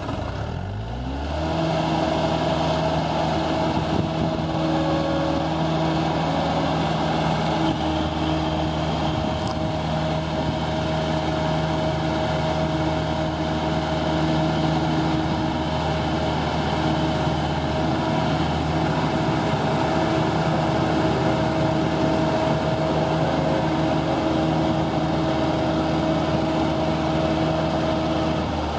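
Case 450CT loader's diesel engine speeding up in the first second or two, then running steadily at a constant speed.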